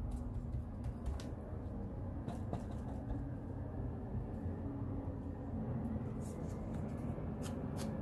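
Paper cutouts rustling and the light taps of a foam ink blending tool dabbing ink onto paper, the taps coming quicker near the end, over a steady low hum.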